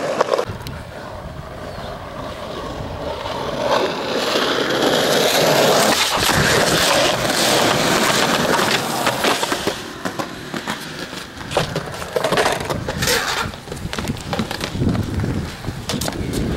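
Skateboard wheels rolling over concrete, growing louder as the board comes closer and holding steady for a few seconds. In the latter part, a run of sharp clacks and knocks from the board striking the ground.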